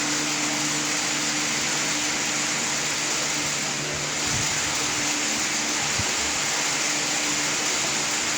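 Steady whirring hiss of running machine noise with a low hum, plus a couple of faint low thuds about four and six seconds in.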